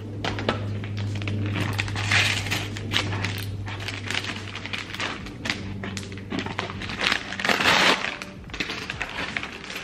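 Stiff brown paper crinkling and rustling as it is handled, with scattered sharp clicks and taps; the loudest rustle comes about three-quarters of the way through.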